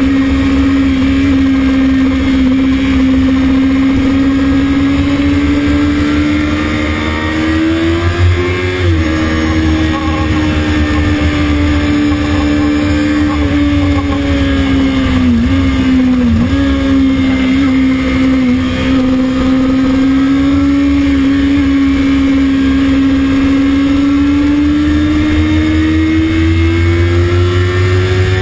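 Kawasaki ZX-6RR's inline-four engine running at high revs under load, heard on board over heavy wind rush. The note holds fairly steady, dips twice in quick succession about halfway through, then climbs steadily toward the end.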